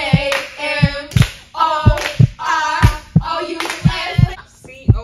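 Voices singing in a chant over a rhythmic beat of low thumps and sharp hand claps, about two to three beats a second.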